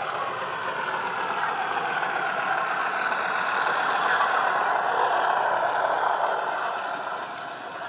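Model Class 50 diesel locomotive's DCC sound, a Howes Class 50 sound file on a Loksound 4 decoder, playing a diesel engine running through an EM1 and megabass speaker. It grows louder as the locomotive passes close by, about four seconds in, then fades as the wagons follow.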